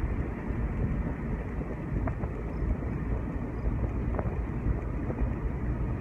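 Steady road and engine rumble inside a moving car's cabin.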